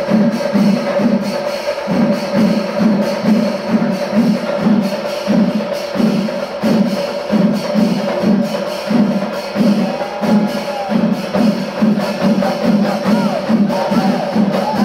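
Chenda melam: massed chenda drums beating a steady pulse of about two beats a second, with cymbals and a steady held tone, during the kalasham climax of the ensemble. Rising-and-falling calls come in about ten seconds in and again near the end.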